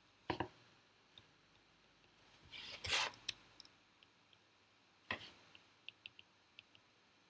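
Stylus writing on a tablet screen: faint ticks and a few short scratchy rubbing strokes, the loudest about three seconds in.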